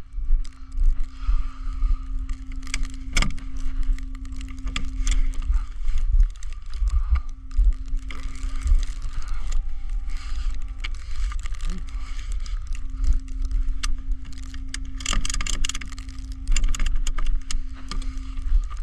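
Vehicles idling at a flatbed tow truck: a steady low engine rumble and a constant hum that stops and starts several times, with a few sharp clicks and knocks, several close together near the end.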